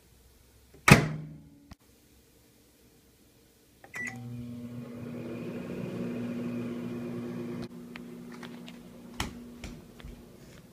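Microwave oven door shut with a loud clunk about a second in. A few seconds later a keypad beep sounds and the microwave starts an express cook cycle with a steady hum, which drops in level a few seconds later but keeps running, with a few light clicks near the end.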